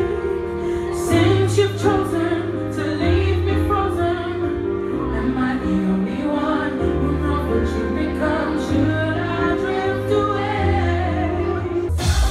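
Live pop band playing on stage with a singer singing into a microphone over sustained bass notes and chords. The music cuts abruptly to a different passage near the end.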